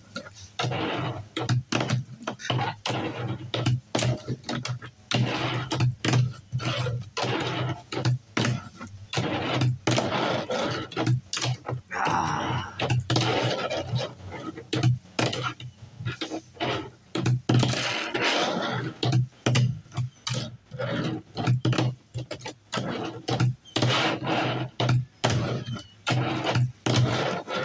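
Tech Deck fingerboard being flipped, landed and rolled on a tabletop: a long irregular run of sharp clicks and clacks, with stretches of rolling noise between them.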